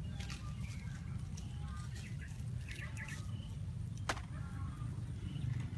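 Outdoor ambience: a steady low rumble with scattered faint clicks and short chirps, and one sharp click about four seconds in.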